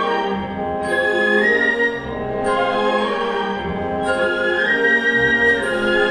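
Student symphony orchestra playing in full: strings, woodwinds and brass in sustained melodic phrases, with fresh phrases entering about every second and a half.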